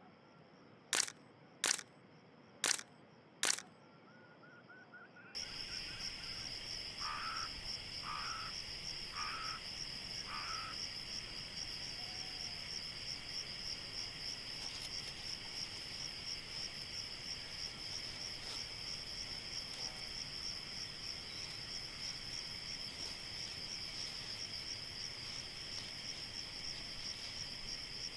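Four sharp camera shutter clicks about a second apart. About five seconds in the sound changes abruptly to a steady, high-pitched chorus of crickets, with four short chirps just after the change.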